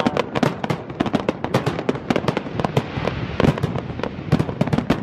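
Fireworks display: a dense run of sharp pops and bangs, many a second, with crackling between them.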